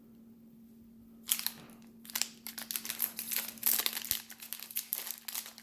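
Plastic packaging crinkling and crackling as it is handled, starting about a second and a half in and going on in quick, close rustles, over a faint steady electrical hum.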